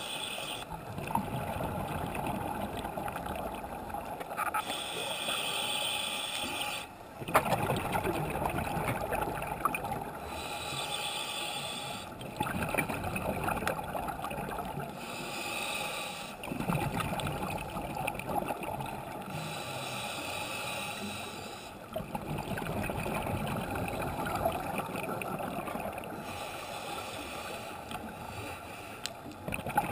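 Scuba diver breathing underwater through a regulator: a hissing draw on each inhale alternating with a gurgling rush of exhaled bubbles, one breath every five or six seconds.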